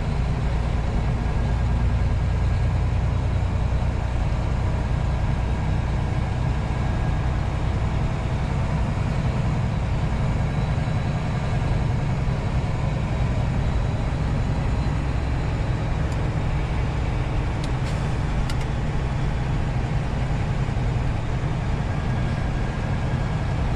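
Semi-truck's diesel engine running steadily at a low, even drone as heard inside the cab, over constant road noise.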